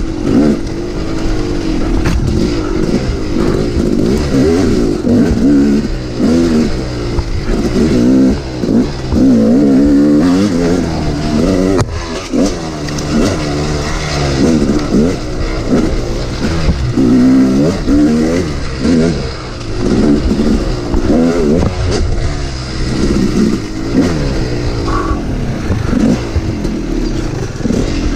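Yamaha YZ250 two-stroke dirt bike engine, heard close from the bike itself, revving hard and rising and falling in pitch again and again as the throttle is worked through a twisty trail.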